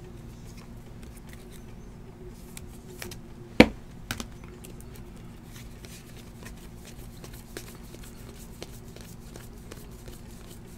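Trading cards being handled and flipped through by hand, with faint scattered ticks of card on card and one sharp click about three and a half seconds in, followed by a few smaller clicks. A steady low hum runs underneath.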